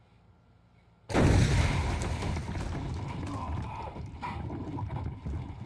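A paint bomb rigged inside a plastic portable toilet goes off about a second in with a sudden loud blast. Blue paint splatters around the stall for a few seconds after, slowly dying down.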